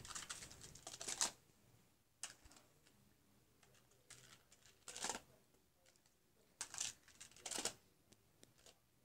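Plastic magnetic building tiles clicking and clattering as they are handled and snapped together: a run of clicks at first, then scattered clacks with quiet gaps between.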